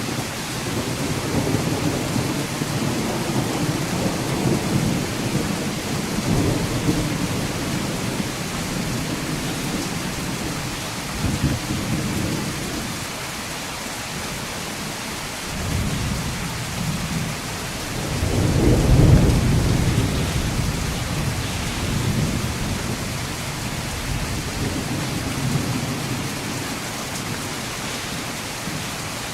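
Thunderstorm: steady rain hiss with rolling low rumbles of thunder that swell and fade, the loudest rumble about two-thirds of the way through.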